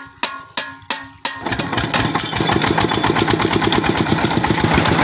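Peter single-cylinder diesel tube-well engine: a few slow knocks, then it fires about a second and a half in and runs with a steady, fast, even chug.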